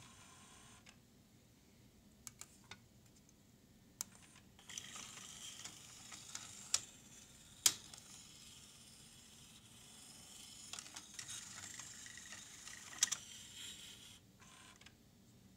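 Cassette changer mechanism of a Mitsubishi TX-L50 boombox cycling: a small belt-driven motor whirs through plastic gears in two spells, with sharp clicks and snaps as the cassette magazine and tray latch into place. The owner says the mechanism does not work reliably and needs fresh belts and regreasing.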